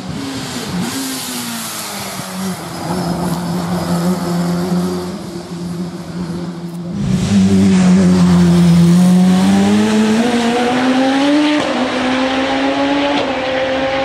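Racing car engine on a hillclimb run. Its note falls and holds steady, then gets much louder about seven seconds in and rises in pitch under acceleration, with a brief dip about eleven and a half seconds in as it changes up a gear before rising again.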